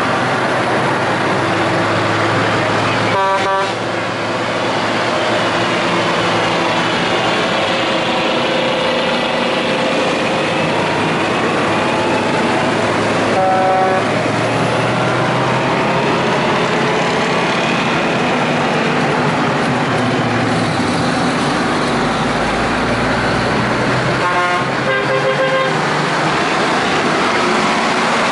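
Heavy Brockway trucks' engines running as they drive past one after another, with short horn blasts about three seconds in, about halfway through, and again about twenty-five seconds in.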